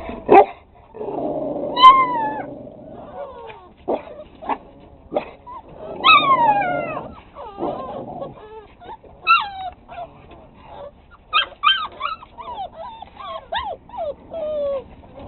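Six-week-old pit bull puppies yipping and whining, many short high cries that slide down in pitch, with a couple of rougher barks about a second and six seconds in.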